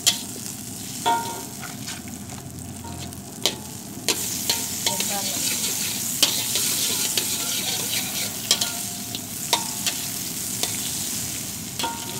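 Blue Band margarine sizzling as it melts in a hot wok, with a metal spatula scraping and clinking against the pan. The sizzle grows louder about four seconds in as the fat heats up.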